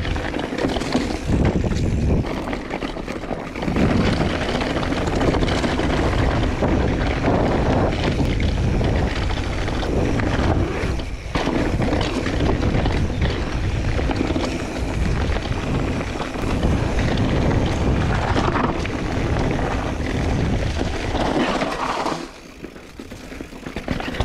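Mountain bike ridden fast down a dirt forest trail: tyres rolling over roots and stones, with the bike rattling and knocking over bumps and wind rushing over the microphone. It quietens near the end.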